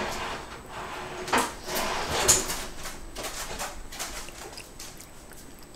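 A few light knocks and clatters of household objects being handled, the two clearest about a second and a half and two seconds in, with faint ticks in between.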